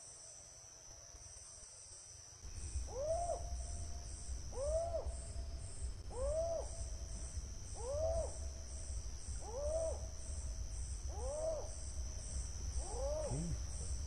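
Crickets chirring steadily, then about two and a half seconds in an animal starts calling: a short rising-and-falling call repeated about every second and a half, seven times. It is startling enough to frighten the fishermen, who wonder whether an owl makes it.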